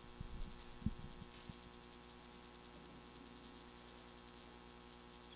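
Steady low electrical hum from the room's microphone and sound system, with a few soft low thumps in the first second and a half.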